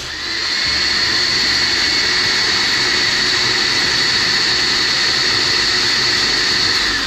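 Electric kitchen blender motor running at a steady high speed with a high-pitched whine, switched off near the end and winding down, its pitch falling. This is the run during which the blender broke at its base while blending a jar of chocolate bonbons.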